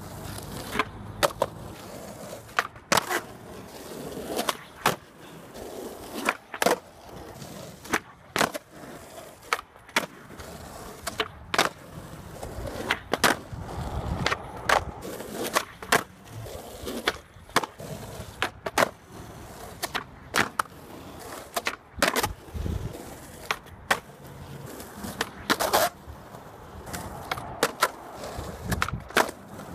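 Skateboard wheels rolling over rough asphalt, broken by many sharp clacks of the deck hitting the ground as it is popped and landed in flatground tricks.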